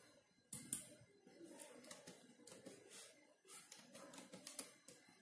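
Faint, scattered clicks of computer keyboard keys and a mouse, a few separate taps spread over a few seconds.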